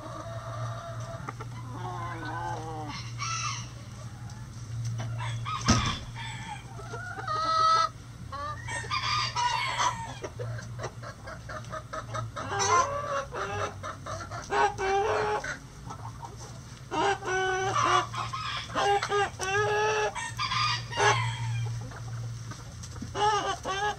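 A backyard flock of hens and roosters clucking and calling, with long drawn-out calls that include rooster crowing. A single sharp knock sounds about six seconds in, over a steady low hum.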